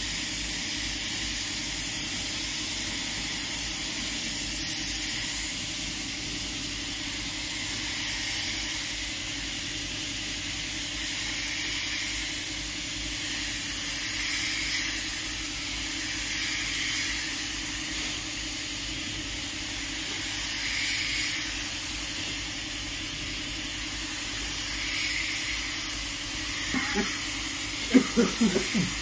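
Compressed-air spray gun hissing as it sprays wood polish, a steady hiss that swells and eases every few seconds as the trigger and stroke vary. A few brief louder sounds come near the end.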